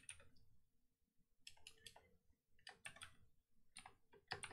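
Faint computer keyboard typing: about five short runs of key clicks separated by brief pauses.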